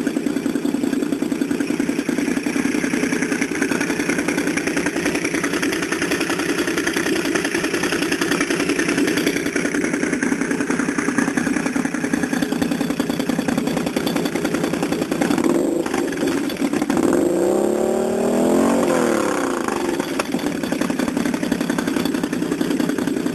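Can-Am Renegade 800-X ATV's V-twin engine through an AAEN Power-Pipe aftermarket exhaust, running steadily. About seventeen seconds in it is revved up and drops back, with a single sharp knock just before.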